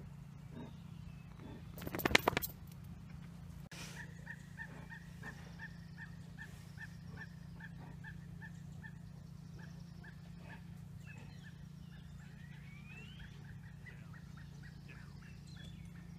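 A bird calling in a run of short, evenly repeated high notes, about two a second, over a steady low hum. A brief loud crackling burst comes about two seconds in.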